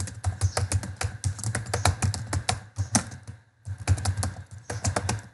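Computer keyboard typing: a quick run of keystrokes, with a short pause about three and a half seconds in before the typing resumes.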